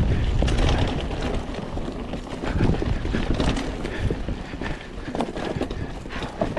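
Mountain bike riding fast down a dry, dusty dirt trail: tyre noise on the ground with frequent sharp rattles and knocks from the bike over bumps, and wind rumbling on the microphone.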